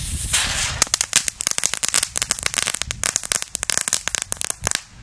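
Weko Flashcracker crackling firecracker: a short fuse hiss, then a rapid, dense string of sharp crackling pops for about four seconds. It crackles out with no closing bang.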